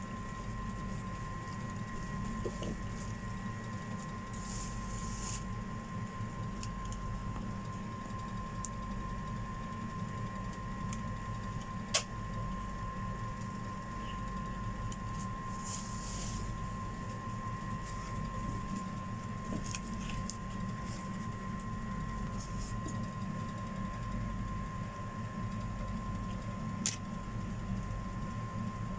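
Steady mechanical hum with a constant tone, broken by a sharp click about twelve seconds in and another near the end.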